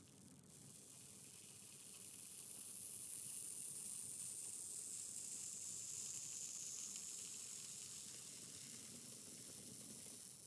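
Hot-wire foam cutter melting its way through Styrofoam: a faint, steady, high sizzling hiss that comes up about half a second in and holds as the wire traces a curve.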